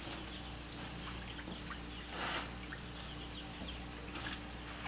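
Worm-bin leachate dripping into a plastic collection tub: scattered small drips, with one brief louder trickle about two seconds in. A faint steady hum runs underneath.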